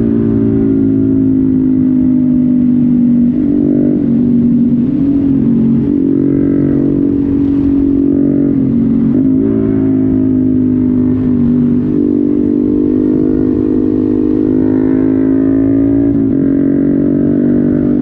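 Honda MSX 125 Grom's single-cylinder four-stroke engine running at a steady pace under way, its pitch dipping briefly and climbing back several times as the throttle changes.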